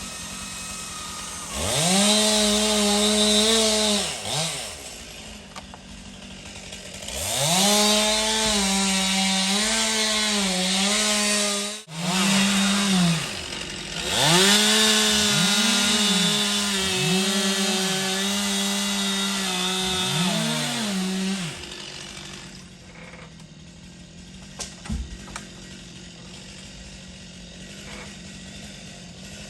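Chainsaw cutting in three long bursts at full throttle, falling back between them and blipped several times late in the last burst, then dropping to a quieter idle.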